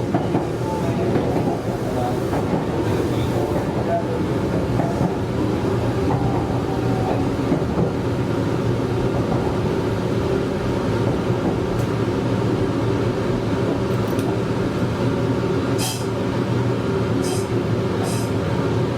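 Meitetsu 100 series electric train running slowly into its terminal platform, a steady rumbling hum heard from the cab, with a few short hisses near the end.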